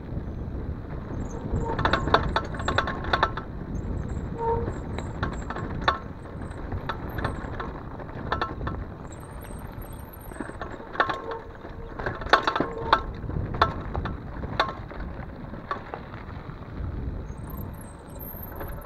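Mountain bike rattling and clattering over a rough dirt and rock trail, with many sharp knocks and clinks from the bike, densest in two spells about 2 s and 11 s in, over a steady low rumble of wind on the microphone and tyres on the ground.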